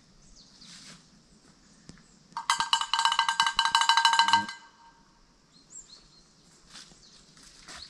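Small bells jingling rapidly for about two seconds, starting a little past two seconds in, then stopping.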